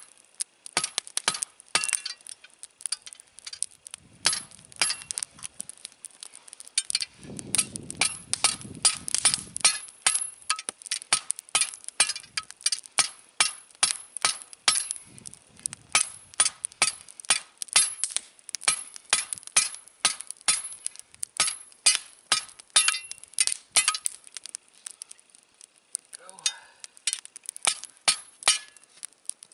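Hammer striking a hot steel rod being forged into a ground spike: a steady run of sharp metallic blows, about two to three a second, each with a bright ring, pausing briefly near the end.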